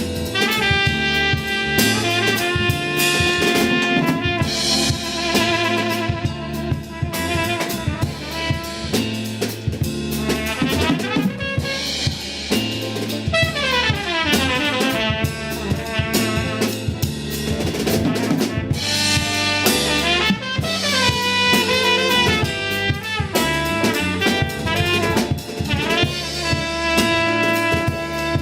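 Band music with a drum kit keeping a steady beat, a repeating bass line, and horns playing melodic lines, with sliding runs about halfway through.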